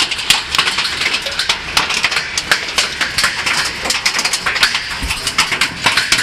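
Heavy hail coming down hard: a dense, continuous clatter of hailstones striking, with many sharp individual hits over a steady hiss.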